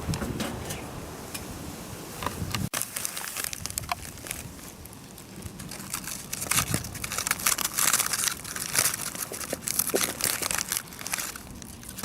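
Irregular crinkling and crackling handling noise, densest in the second half.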